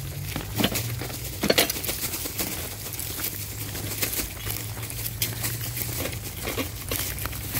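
Footsteps crunching irregularly on the gravel ballast of a railway track, with a low steady hum underneath.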